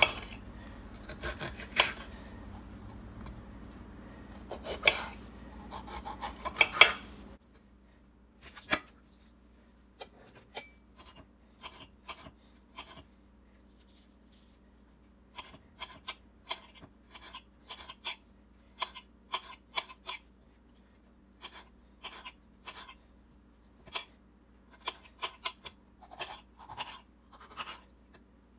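A serrated knife cutting bell peppers on a glass baking dish: a string of irregular, sharp taps and clicks of the blade and pepper pieces against the glass, with short pauses.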